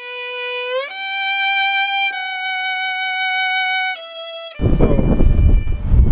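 A short solo violin sting dubbed in as a sound effect: a note swells and slides up into a long held higher note, then drops a step and cuts off. Wind buffeting the microphone returns near the end.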